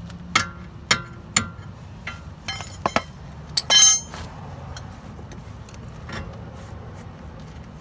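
Metal hand tools clinking and knocking as they are handled: a few sharp metallic clinks in the first second and a half, a quick double clink about three seconds in, and the loudest, briefly ringing clank about four seconds in.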